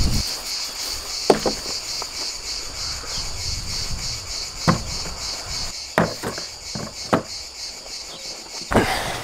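Steady, high-pitched chirring of insects with a fine rapid pulse, cutting off abruptly near the end. About six sharp knocks sound at irregular intervals over it.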